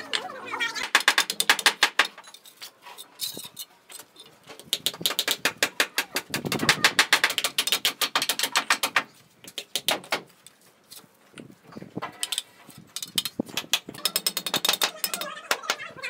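Runs of rapid clicking and tapping, three stretches of several seconds each, from bricklaying: a trowel and bricks knocking as bricks are set into fresh mortar.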